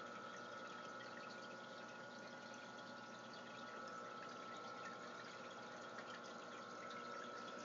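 Aquarium filter running: water trickling and dripping steadily, with a faint steady hum.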